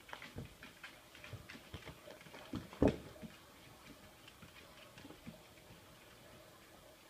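Irregular light clicks and taps of a baby raccoon's and a pit bull's claws and paws on a tile floor, with one louder thump about three seconds in. The clicking thins out in the second half.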